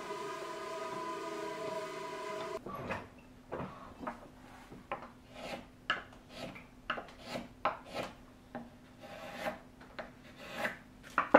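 A steady machine hum that cuts off about two and a half seconds in, then short, irregular hand-tool strokes, roughly two a second, scraping across wood as the saw marks are smoothed off the sawn curved edge of a small hardwood part.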